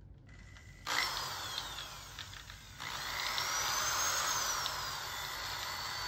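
Cordless drill spinning a sandpaper dowel inside a golf iron's hosel, sanding out rust and debris. The drill starts suddenly about a second in, slows briefly, then runs again with a whine that rises and falls.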